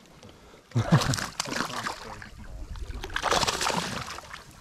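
Water splashing and sloshing against the side of a small boat as a hooked fish is brought alongside and reached for by hand, in two choppy stretches.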